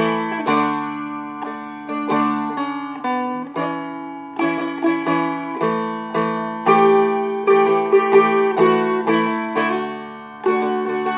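Seagull Merlin M4, a four-string fretted dulcimer-style instrument, strummed steadily, roughly two strums a second, playing a chord-melody phrase over ringing open drone strings. It shifts between A and D chord shapes as the fretted notes change.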